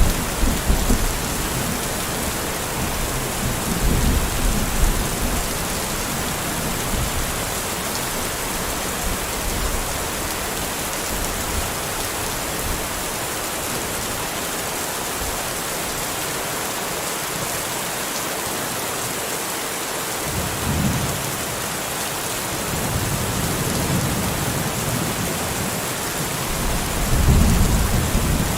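Steady rain falling, an even hiss, with low rolls of thunder rumbling under it: one fading just at the start, another about four seconds in, and several more swelling in the last third.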